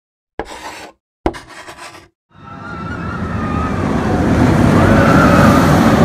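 Intro sound effects: two short sharp hits about a second apart, then a rushing noise that swells for a few seconds to a peak, with faint wavering high tones riding over it, a vehicle-like rush that goes with an animated roller-coaster car entering.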